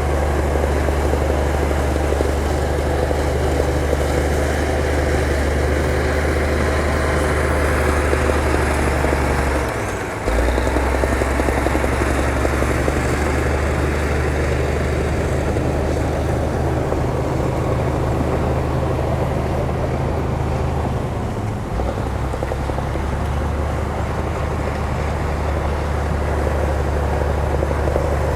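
Heavy diesel engine of earthmoving equipment running steadily with a deep drone. It dips briefly about ten seconds in and again a little past twenty seconds.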